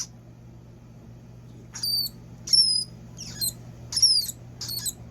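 Richardson's ground squirrel giving a series of about six short, high-pitched squeaks, each falling in pitch, beginning about two seconds in, while it is held for examination.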